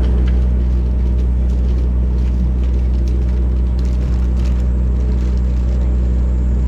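A fishing boat's engine running steadily underway: a loud, even low drone with a rumble, and splashing or hull noise over it.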